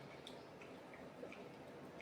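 Faint, scattered ticks and crackles of a freshly opened carbonated drink fizzing, a few small pops a second.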